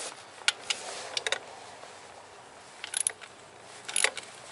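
Hand ratchet with a 14 mm socket clicking in a few short runs while backing off the swingarm clamp bolts, loosening the eccentric rear hub so the chain can be tensioned.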